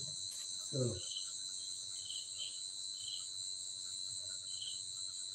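Steady high-pitched chorus of crickets, with short chirps repeating every second or so. A brief voice is heard about a second in.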